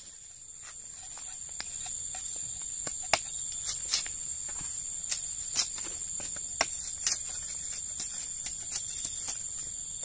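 Machete and sickle blades striking and scraping sugarcane stalks to peel off the rind, giving irregular sharp clicks, over a steady high insect drone.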